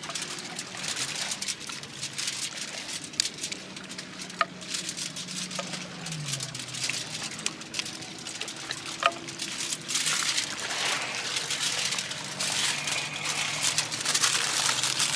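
Soft scraping and tapping of a wooden spatula spreading masala over a fried pomfret on a banana leaf, then banana leaf and foil rustling under the hands, over a steady hiss. A faint low hum drops in pitch about six seconds in.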